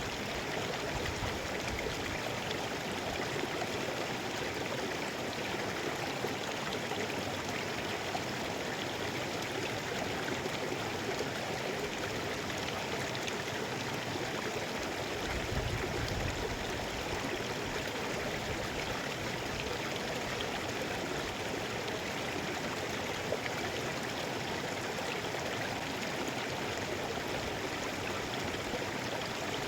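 Mountain river flowing over rocks: a steady, unbroken rush of water, with a brief low rumble about halfway through.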